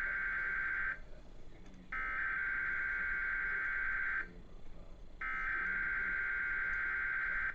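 Emergency Alert System SAME header data tones played through a TV speaker: rapid, high-pitched digital warbling sent in three bursts, the coded alert header repeated three times for a Required Weekly Test. The first burst ends about a second in, and the next two each last a little over two seconds, with about a second of pause between them.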